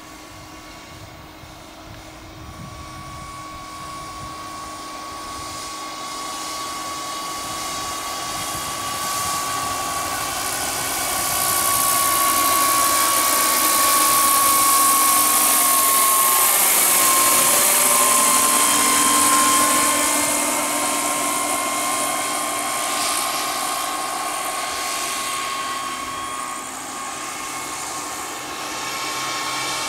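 Turbine-powered RC scale model helicopter, a Sikorsky S-64 Skycrane, flying past: a steady high turbine whine with hissing exhaust and rotor noise. It grows louder to a peak a little past the middle as it passes closest, then fades as it flies away.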